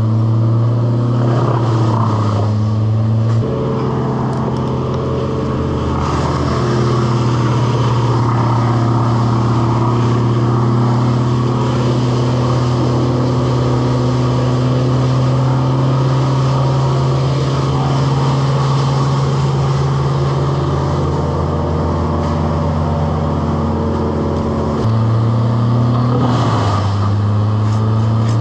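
An engine running steadily at a constant speed. Its pitch steps up slightly about three seconds in and drops back near the end.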